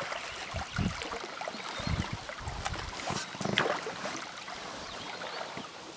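Paddling in a small boat on a river: a few low knocks and splashes of the paddles in the first four seconds, with faint short high chirps throughout.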